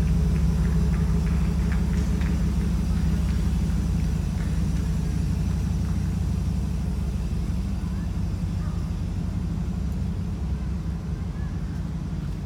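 A vehicle engine idling, a steady low rumble that eases off a little over the last few seconds, with faint voices in the background.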